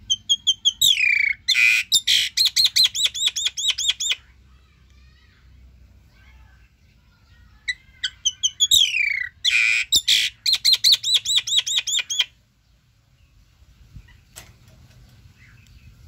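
Common myna calling in two loud bouts a few seconds apart. Each bout opens with a falling whistle and runs into a fast string of repeated sharp notes, about five a second.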